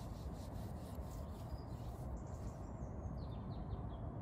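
A hand scrubbing a solar panel's glass with a cleaning pad in repeated rubbing strokes, which stop a little past halfway. A steady low rumble lies underneath.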